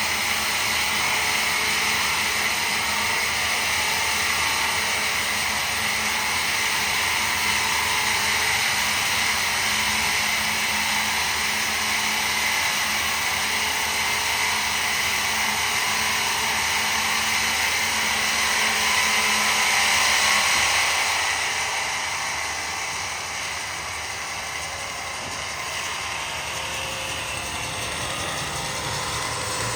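A woodworking machine running steadily, its noise easing off somewhat about two-thirds of the way through.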